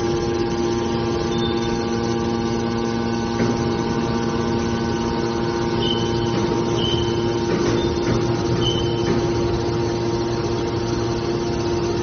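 Hydraulic scrap-metal baler's power unit running steadily: an electric motor and hydraulic pump humming with a constant whine. A few brief high squeaks come in the second half.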